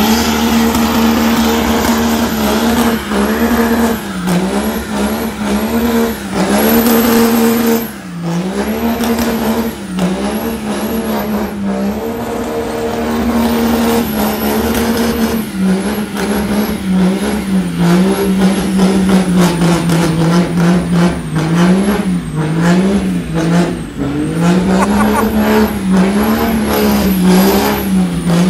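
A built 6.7 L Cummins diesel in a pickup, held at high revs through a long burnout in 4th gear, heard from inside the cab. The engine note stays high and steady but sags and recovers several times as the spinning rear tyres catch and slip, with a thin high whine riding on top.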